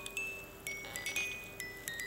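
The tiny music movement of a vintage Reuge musical automaton alarm pocket watch playing its alarm tune: a steel comb plucked note by note, about three or four high notes a second, each ringing briefly.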